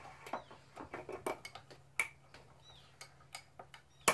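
Metal teaspoon stirring salt water in a small drinking glass, clinking against the glass in quick, irregular light taps, with one sharper clink near the end.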